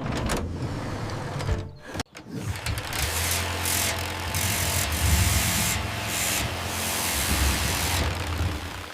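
Table saw running with a steady low hum and a loud hiss, likely the blade cutting a board. It cuts out abruptly about two seconds in, then starts again and carries on.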